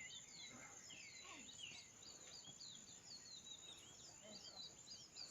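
Faint outdoor chorus of birds calling in many short, quick whistled chirps, over a steady high-pitched insect drone.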